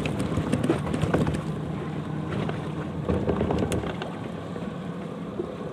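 Patrol boat's engine running steadily, with wind noise and a few light knocks.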